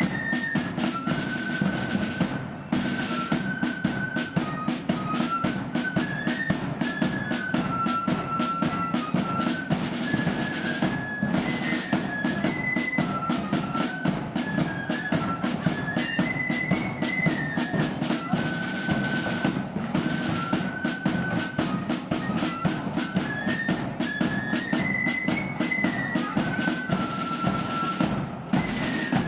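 Loyalist marching flute band playing a tune: flutes carry a stepping melody over rapid, continuous side-drum strokes and rolls and a bass drum beat.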